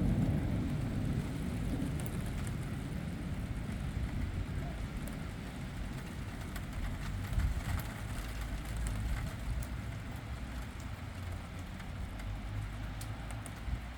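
Thunder rumble dying away over the first second or two, then steady rain with scattered drop ticks during a thunderstorm.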